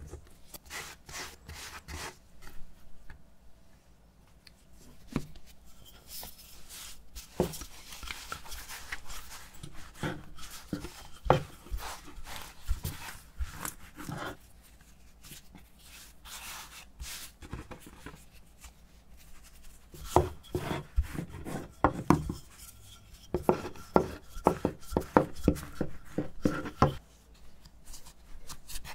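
Bread dough being worked by hand on a floured wooden board: rubbing and soft taps as it is rolled flat with a rolling pin, then folded and pressed down with the palms. There is a dense run of quick taps in the last third.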